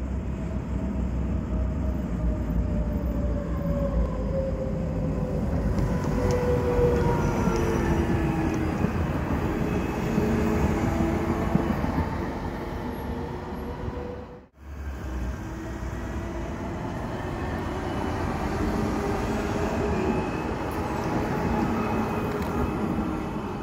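City tram passing close by: a steady rumble of wheels on the rails with the electric drive's whine, which glides down in pitch through the first half. A sudden brief dropout comes a little past halfway, then the running sound resumes.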